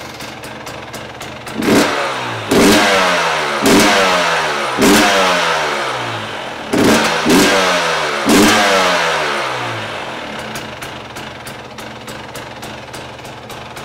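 KTM 300 XC-W's single-cylinder two-stroke engine, running through a new Lexx DuraFlow expansion chamber, blipped about seven times in quick succession with each rev falling away, then settling to a steady idle. The new pipe gives it a higher-pitched exhaust note.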